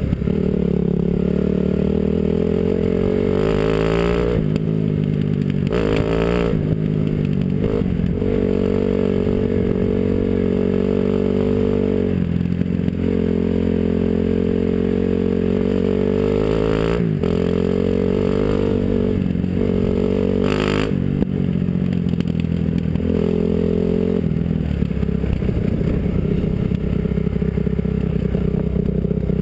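Dirt bike engine running under way, heard from the rider's helmet, its note climbing and dropping again and again as the throttle is opened and eased off, with a few short bursts of noise.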